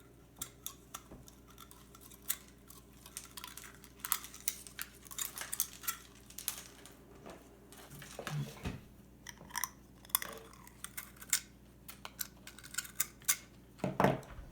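Irregular small clicks, taps and rustles of hands working pliers and a flat ribbon cable through a narrow tube of a camera housing, with a cluster of louder clicks near the end.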